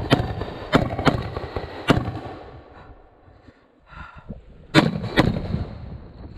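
Pistol-caliber carbine fired in quick strings: four shots in the first two seconds, a pause, then two more shots about a second from the end.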